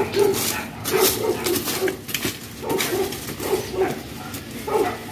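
A dog barking repeatedly, with a few short scrapes and knocks of a hand tool among gravel and stones.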